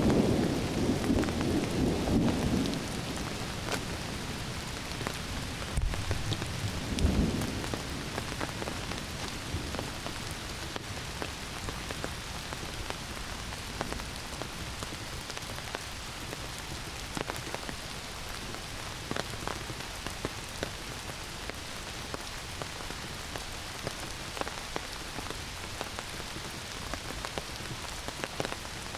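Heavy summer rain falling steadily through forest trees, with scattered drips. Thunder rumbles low during the first two or three seconds and again briefly about seven seconds in; after that only the rain continues.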